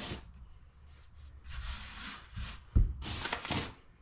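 Hands brushing flour across a kitchen worktop and working a ball of hot water crust pastry on it, heard as soft scuffing in a few stretches. A dull thump comes just under three seconds in.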